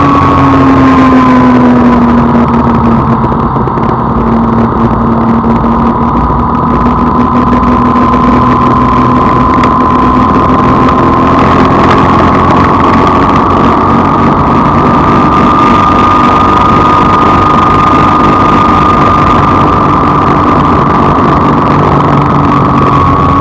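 Radio-controlled car's motor and gears whining steadily as it drives, with a rough rumble from the wheels on the ground; the whine sinks and rises gently in pitch.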